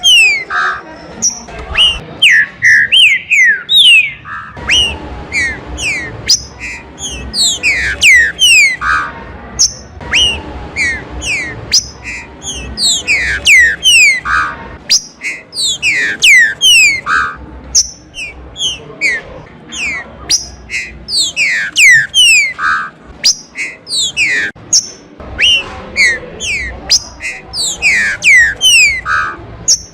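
Green-winged saltator (trinca-ferro) singing: loud phrases of quick whistled notes, each sliding down in pitch, repeated one after another without a break.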